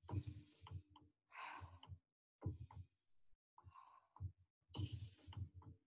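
A woman's short, forceful breaths, about one a second, from the exertion of quick repeated leg kicks; the strongest puff comes near the end.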